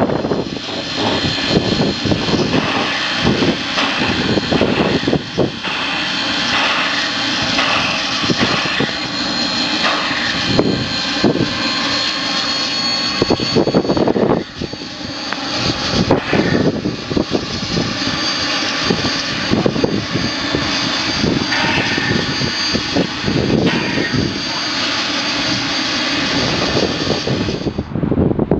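NZR WAB-class steam locomotive running, a steady loud rushing noise with frequent irregular knocks.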